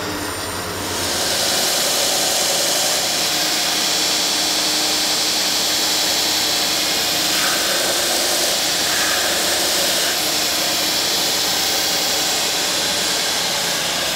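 Belt grinder with its abrasive belt running and sanding a hickory axe handle: a steady loud hiss that comes up about a second in and holds.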